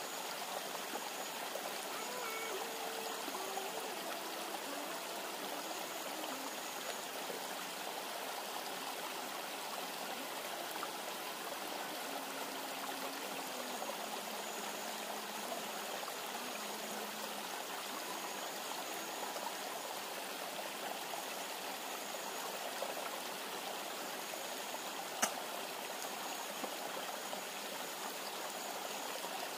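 A river running steadily: an even rushing noise of flowing water, with a single sharp click about 25 seconds in.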